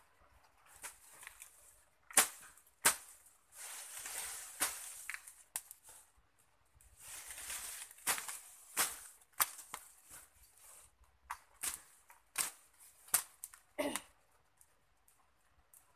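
Green brush and twigs snapping and rustling as they are worked with a stick on a smouldering brush fire: about a dozen sharp cracks spread through, the loudest two near the start, with two spells of leafy rustling.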